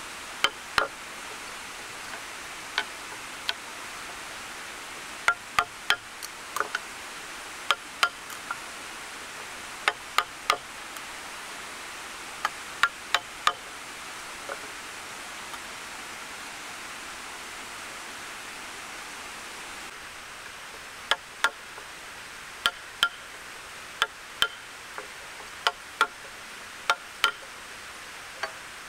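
Wooden mallet striking a steel chisel, cutting a mortise into a timber beam: sharp irregular knocks, singly and in quick runs of two or three, with a pause of several seconds partway through, over a steady hiss.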